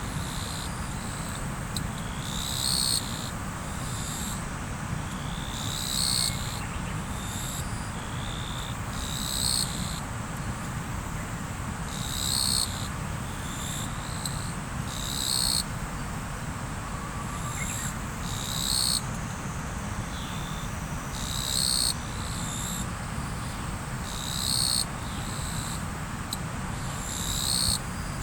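River water flowing with a steady rush. Over it, a short high call repeats about every three seconds and is the loudest sound, with a faint steady high insect whine beneath it.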